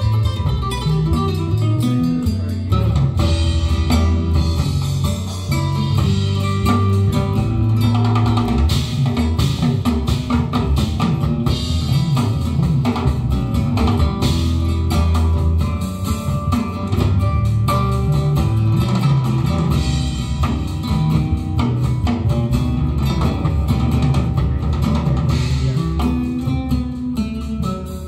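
Guitar-led music with bass guitar and drums played back over Borresen 05 Silver floorstanding loudspeakers, with a strong, moving bass line and steady drum hits.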